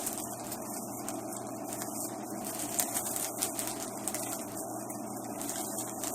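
Packaging being handled and opened, with scattered rustles and a few small knocks around the middle, over a steady background hum.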